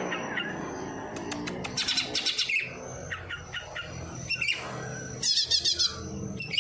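A songbird singing in two bouts of rapid high chirps and trills, a mimic copying sparrow and prinia (prenjak) calls.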